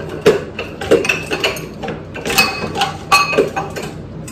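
Dishes and kitchen utensils being handled on a counter: an irregular string of sharp knocks and clinks, several ringing briefly.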